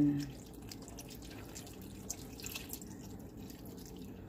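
Coconut milk pouring in a thin stream into a wok of string beans, a soft steady trickle with a few faint drip-like ticks.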